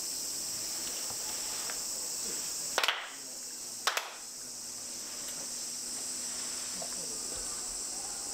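Ritual handclaps of Shinto shrine worship: a small group claps twice, about a second apart, each clap slightly ragged as the hands don't land together. A steady high insect drone carries on underneath.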